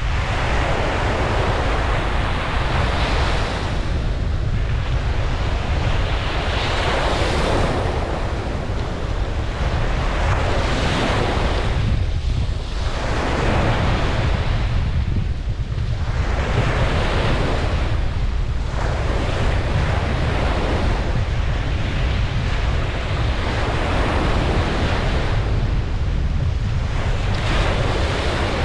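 Ocean waves breaking and washing on a beach, the surf swelling and ebbing every few seconds over a steady low rumble of wind on the microphone.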